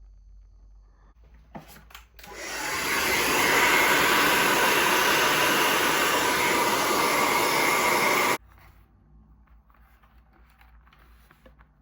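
Hand-held hair dryer clicked on about two seconds in, spinning up over a second, blowing steadily for about six seconds, then switched off abruptly.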